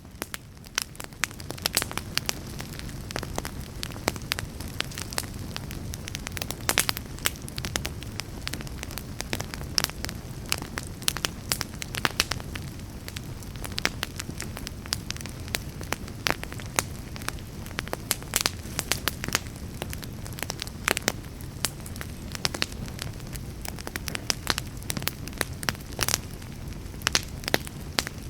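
Fireplace fire crackling, with frequent sharp pops and snaps over a low steady rumble.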